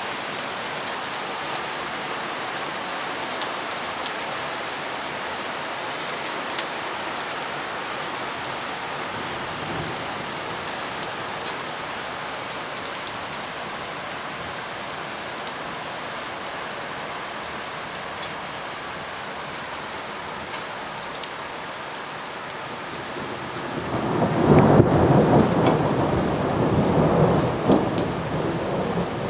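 Steady rain falling during a thunderstorm, then near the end a long, loud rumble of thunder that rolls on for several seconds.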